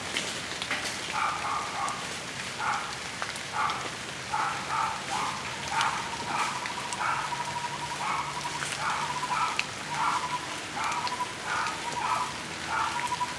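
Steady rain patter with scattered drop ticks. Over it an animal gives short calls in a repeated series, and from about halfway through a continuous pulsing trill runs alongside them.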